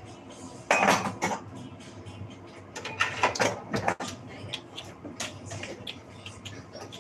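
Kitchen handling noise: a cupboard door and dishes being moved about, with two louder bouts of noise about a second in and about three seconds in, among lighter clicks and knocks.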